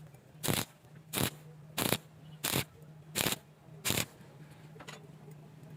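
Six short, rhythmic scraping strokes about two-thirds of a second apart, over a steady low hum.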